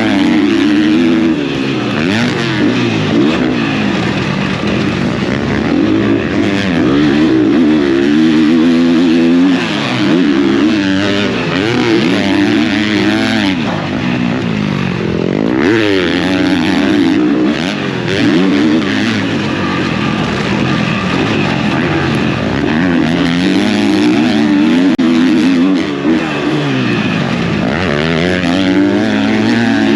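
Motocross bike engine being ridden hard, its revs rising and falling over and over as the rider accelerates and shifts.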